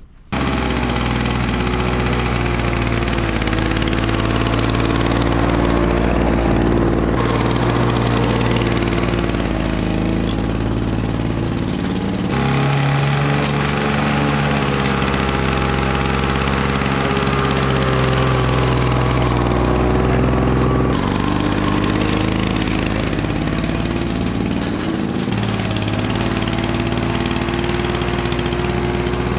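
Petrol lawn mower engine running steadily under load while mowing. It comes in suddenly at the start, and its pitch shifts abruptly a few times.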